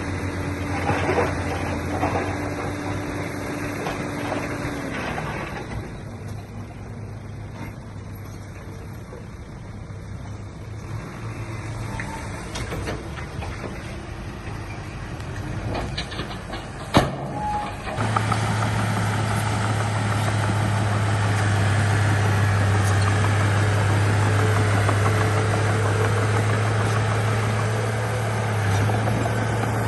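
Heavy construction machine's diesel engine running. Its steady drone drops in pitch about five seconds in and goes quieter, then a sharp knock comes. A second or so later a louder, steady engine drone starts abruptly.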